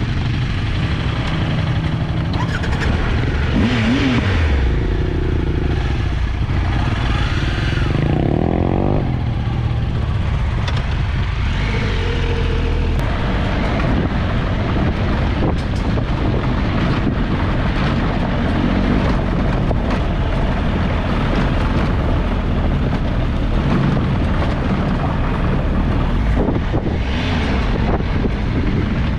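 Triumph Tiger three-cylinder motorcycle engine running steadily, with brief changes in pitch at a few points.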